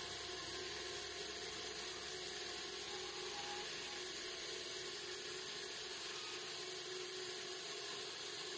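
Wood lathe running, with a narrow chisel cutting a small spinning wooden spindle: a steady hiss.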